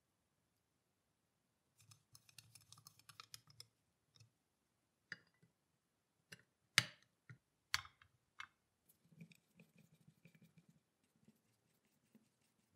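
Small metal parts of a cast-iron mechanical coin bank being handled and fitted together: faint clicking and scratching, with a few sharper clicks in the middle, the two loudest about a second apart.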